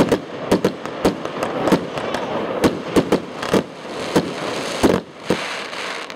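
Fireworks going off: a rapid, irregular run of sharp bangs and pops from aerial bursts, with a denser hissing crackle of glittering stars a little past the middle.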